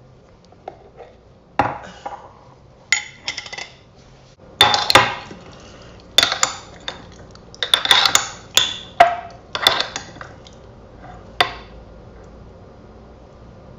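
A metal utensil knocking and scraping against a dish in irregular bursts of clicks and clatter, loudest about five and eight seconds in, then dying away after about eleven seconds.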